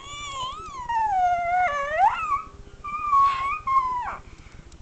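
Dog howling in a series of high calls that waver and glide up and down in pitch, the longest about two seconds.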